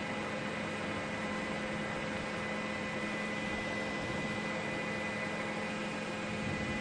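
A steady droning hum with an even hiss, unchanging throughout.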